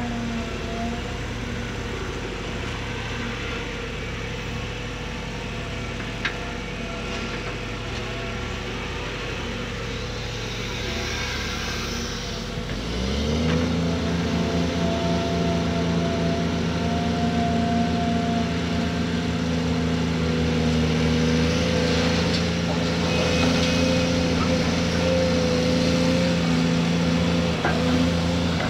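Heavy diesel engines of a Cat 340D L hydraulic excavator and a coal dump truck running steadily. About halfway through, an engine revs up with a short rising pitch, then holds a higher, louder note.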